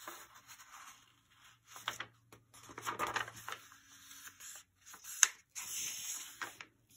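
A sheet of paper being folded in half and pressed flat by hand: it rustles and slides on a wooden tabletop in several short bursts, with one sharp tap a little over five seconds in.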